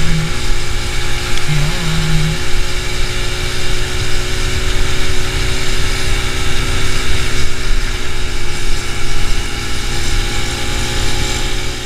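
Motorcycle engine running steadily at cruising speed, mixed with heavy wind rush over the onboard microphone.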